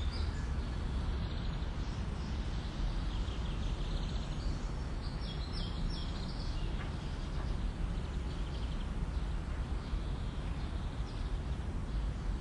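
Birds chirping now and then over a steady low rumble of background noise.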